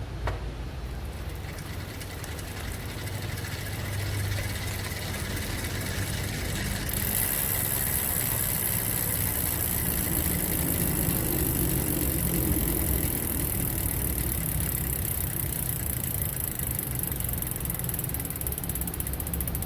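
Freehub of a Formula rear hub ratcheting as a road bike's rear wheel spins freely: a fast run of clicks that becomes louder and sharper about a third of the way in and stays steady to the end.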